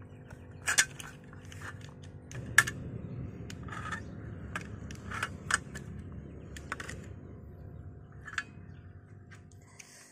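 Metal utility-knife blade and metal tongs clicking and scraping against a fluted metal platter and through a boiled duck being cut apart: scattered sharp clicks over a low steady rumble.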